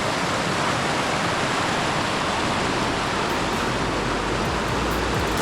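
Rushing whitewater, a loud steady rush.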